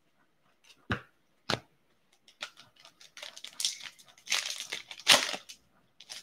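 Two sharp taps about a second in, then the foil wrapper of a hockey card pack crinkling and tearing as it is ripped open, loudest near the end.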